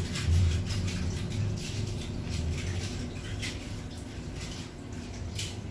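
Soft rustling and scraping, several short strokes a second, over a low rumble.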